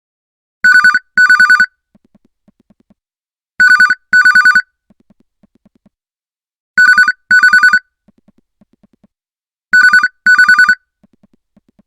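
Samsung Galaxy S25 stock ringtone from its Retro set: a telephone-style double ring. Two short trilling rings sound together as a pair, and the pair repeats four times, about every three seconds, with faint soft ticks in the gaps.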